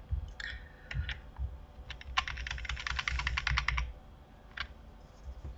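Clicking of a computer keyboard and mouse: a few single clicks, then a fast run of clicks for about two seconds, then one more click.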